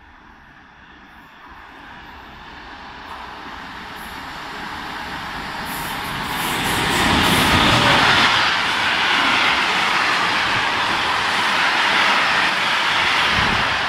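Electric locomotive approaching and a freight train of container flat wagons passing through without stopping. The noise grows steadily over the first half and stays loud as the wagons go by.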